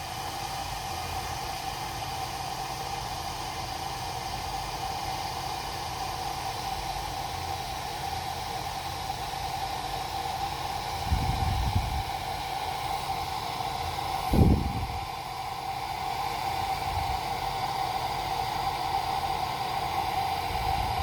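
Water heating in the carafe of an Alpine Cuisine electric Turkish coffee maker, a steady hiss with a faint steady tone that grows slightly louder as bubbles start forming before the boil. Two dull low thumps come about halfway through.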